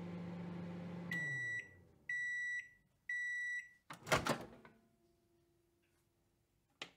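Microwave oven running with a steady hum that winds down as it stops, then three beeps about a second apart signalling the cycle is done. About four seconds in comes a loud clunk of the door being opened.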